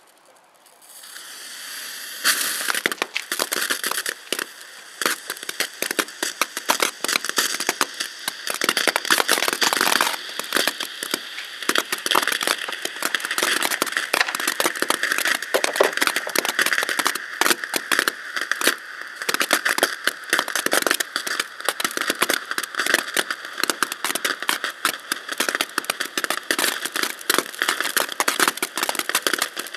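Ground fountain firework burning. A soft fizz grows over the first two seconds, then about two seconds in it jumps to a loud, steady spray of sparks full of dense, rapid crackling pops.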